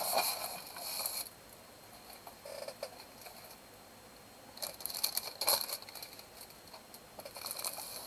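Rustling and crinkling of diamond painting kits and their plastic packaging being handled, in short bursts: for about the first second, again around five seconds in, and faintly near the end.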